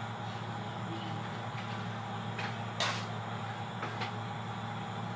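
Kitchen work at a sink over a steady low hum: a few light clicks and one sharper knock about three seconds in.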